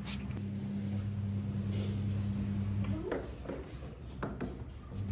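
A steady low electrical hum with a few faint clicks. The hum drops out about three seconds in and comes back near the end.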